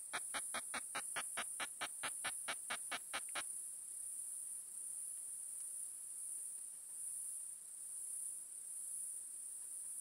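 Male Tettigoniopsis ehimensis katydid's ultrasonic song, made audible by a bat detector: a rapid, even train of sharp clicks, about five a second, that stops about three and a half seconds in, over a steady high hiss.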